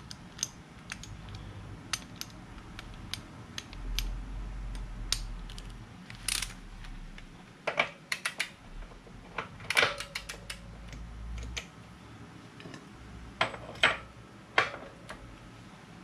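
Torque wrench and socket ratcheting on a motorcycle's rear axle nut being tightened to 100 foot-pounds: scattered metallic clicks and ticks, several sharper clicks in the second half, with a low rumble through the middle.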